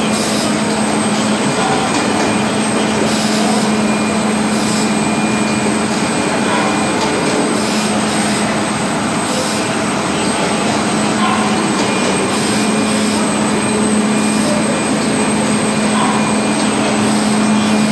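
Steady machinery noise of an automated pancake production line running, with a constant low hum and brief high hisses every few seconds.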